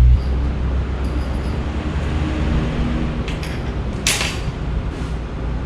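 A steady low rumble with a few light clicks and knocks of accessories being handled out of a hard gimbal carrying case, the sharpest click about four seconds in.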